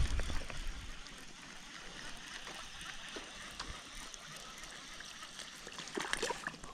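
Shallow creek water running over riffles, a steady rushing hiss, with a brief low bump at the start.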